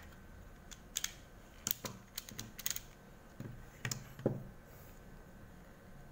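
A run of small, sharp clicks and taps, about a dozen in the first four and a half seconds, from screws and the casing of a small electronic device being handled while it is screwed back together.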